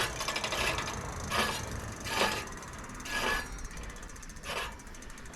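Spinning e-bike rear wheel, its freewheel ticking rapidly, while the disc brake rotor rubs against the caliper with a swish roughly once a second: the rotor is not running clear of the pads, and has a slight wobble.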